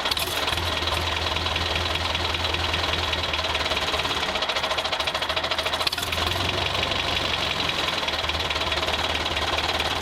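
Engine running steadily at idle with a fast, even knocking clatter.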